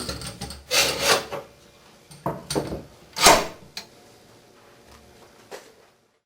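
Clamps being set and tightened on the glued joints of a wooden stand: a series of short scraping and knocking sounds, the loudest about three seconds in.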